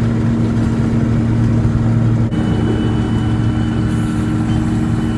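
Heavy farm machine's engine running at a steady speed, an even low drone, with a brief dip in level about two seconds in.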